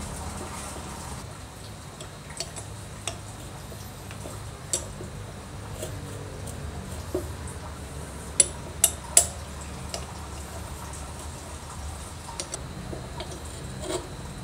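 Small metal parts of an air compressor pump clicking and tapping as it is reassembled by hand, with three sharp metallic clicks in quick succession a little past the middle. A steady low hum runs underneath.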